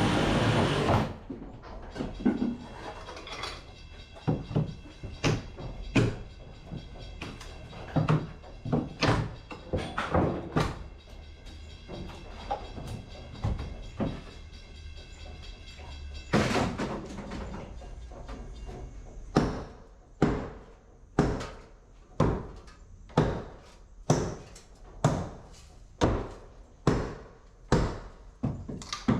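A long series of sharp knocks and thuds, irregular at first and then evenly spaced, about one every 0.7 s, for the last ten seconds or so.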